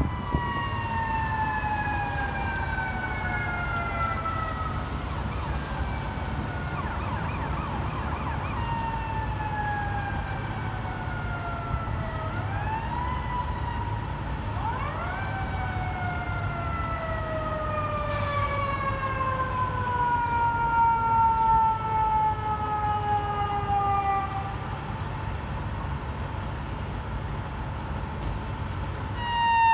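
Fire truck siren wailing: its pitch falls slowly, rises sharply twice about halfway through, then winds slowly down again. A steady low rumble of engines and traffic runs underneath.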